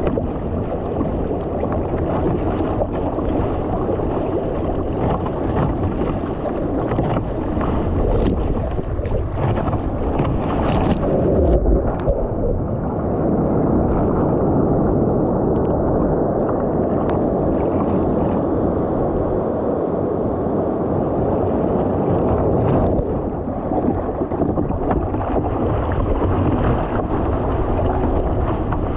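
Steady rush of seawater along the hull of a surfski being paddled through surf, with paddle splashes and breaking whitewater. A few brief sharp splashes stand out.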